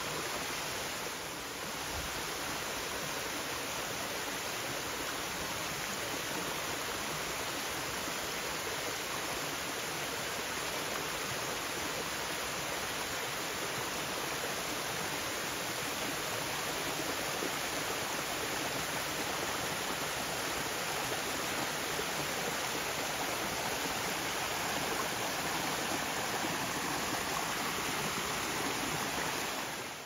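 Steady rush of water pouring down a waterfall.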